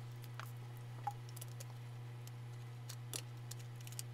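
A steady low hum with scattered faint clicks and small mouth and handling noises as someone sips soda from a plastic bottle.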